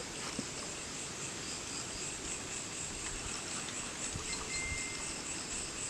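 Steady night chorus of crickets and other insects, with a short higher tone about four seconds in.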